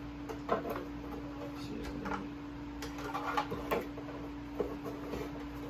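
Scattered light clicks and knocks of things being handled, over a steady low hum.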